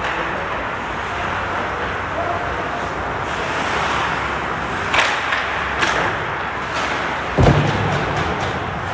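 Ice hockey play: skates scraping on the ice under steady rink noise, with two sharp clacks of sticks on the puck about five and six seconds in, then a heavy thud near the end, the loudest sound.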